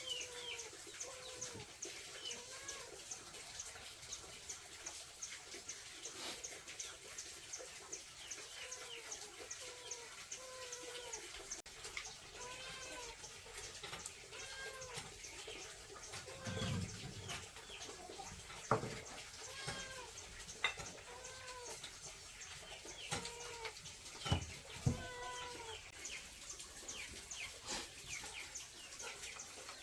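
Farm fowl calling over and over in short, arching calls, with a faint fast high ticking underneath and a few sharp knocks in the second half.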